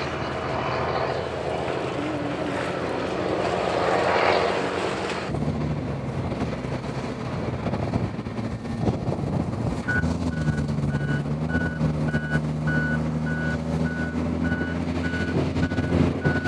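Diesel engines of land-clearing machinery such as a wheel loader running steadily, the noise swelling about four seconds in. From about ten seconds in a backup alarm beeps evenly, roughly twice a second.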